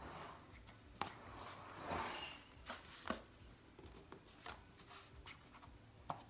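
Faint handling sounds of foam board pieces being pressed and held together by hand: a few sharp clicks and lighter taps, with a brief rustle about two seconds in.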